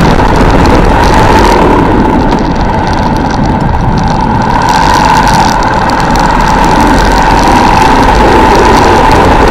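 Armstrong MT500 military motorcycle's single-cylinder Rotax engine running steadily on the move, mixed with a dense hiss of wind and road noise. The hiss thins for a few seconds about two seconds in, then comes back.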